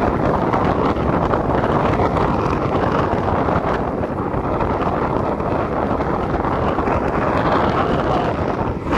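Wind buffeting the microphone of a camera carried on a moving bicycle: a loud, steady rush of wind noise, with a brief dip right at the end.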